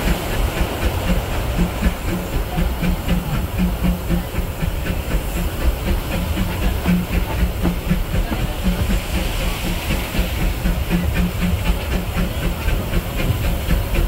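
Steam locomotive E.P. Ripley of the Disneyland Railroad running under way, its rhythmic steam exhaust chuffing steadily along with the passenger cars' wheels rolling and clicking over the rails, heard from a car behind the engine.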